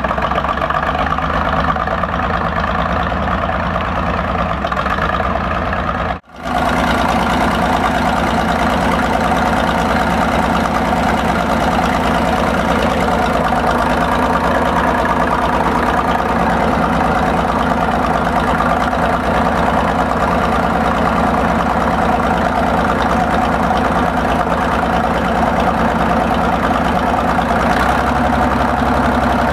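Cletrac Model BG crawler tractor's engine running steadily. The sound drops out for an instant about six seconds in, and the engine's low note shifts near the end.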